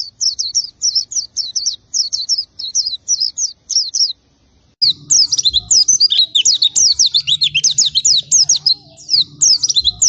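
White-eye singing: a rapid, high twittering of short sliding notes. It pauses briefly about four seconds in, then resumes faster and denser.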